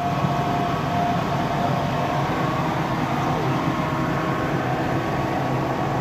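A machine running steadily: a continuous low drone with a faint whine held over it.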